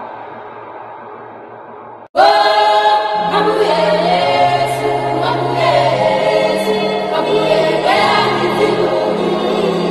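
Background music: a choir singing in a gospel style. A quieter passage cuts off about two seconds in and a new, louder song begins with steady bass notes under the voices.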